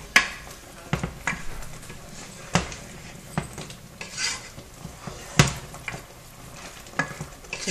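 Wooden spoon stirring a simmering tomatillo sauce in a cooking pot, scraping and knocking against the pot with sharp knocks every second or so, the loudest about five seconds in.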